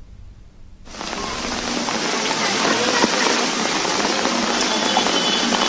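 Heavy rain falling on a flooded street, a steady hiss that comes in about a second in and slowly grows louder.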